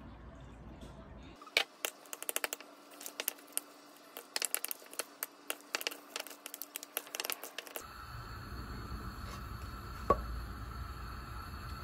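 Metal spoon clinking and scraping against a ceramic bowl as a mashed filling is stirred, many quick sharp clicks for about six seconds. Then a steady hum with a single knock about ten seconds in, as a slice of bread is laid in a frying pan.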